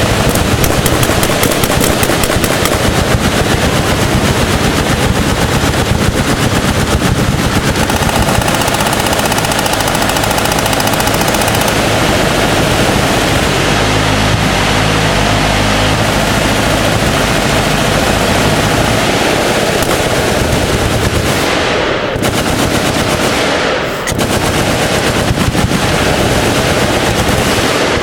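Many machine guns firing at once in sustained full-auto bursts, a dense, continuous rattle of overlapping shots that thins briefly twice near the end.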